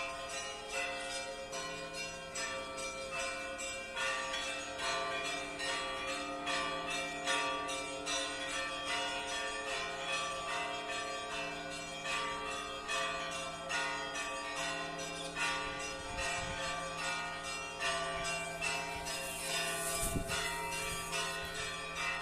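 Easter church bell ringing: several bells of different pitches struck in a quick, overlapping rhythm, each tone ringing on under the next strikes. Two low thuds sound near the end.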